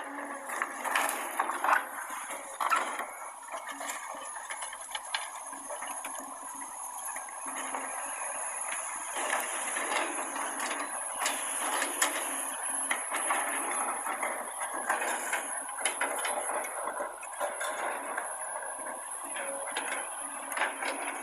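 Earthmoving machinery working, with many irregular metallic clanks and clinks over a continuous mechanical din.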